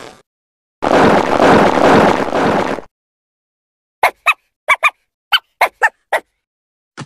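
Animal calls in two parts: a rough, noisy call lasting about two seconds, then after a pause a quick run of eight short, sharp pitched calls, like a fowl's.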